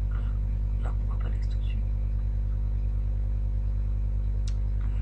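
Steady low electrical hum with a stack of overtones, typical of mains hum picked up by a computer's recording setup. A few faint short sounds come about a second in, and a single sharp click near the end.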